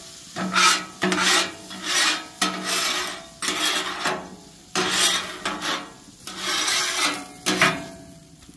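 Hand griddle scraper pushed in about ten rough strokes across the hot, wet steel top of a Blackstone griddle, scraping off food residue that water has steamed loose.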